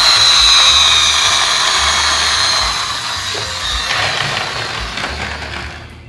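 A plastic toy double-decker bus's motor gears whir after a push along the table. A high whine starts suddenly, then slowly falls in pitch and fades as the mechanism runs down.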